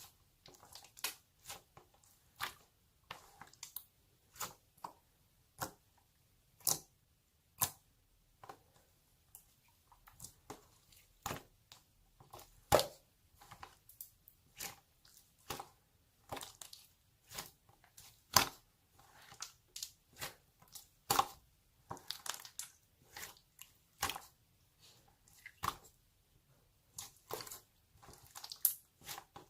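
Clear slime being pressed and squeezed by hand, giving irregular sharp clicks and wet pops, roughly one or two a second.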